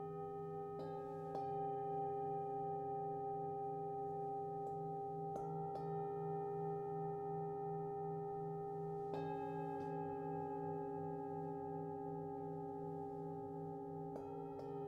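Sound-healing instruments ringing on in long, steady, overlapping tones over a low pulsing drone, with soft new strikes about a second in, around five and nine seconds, and near the end.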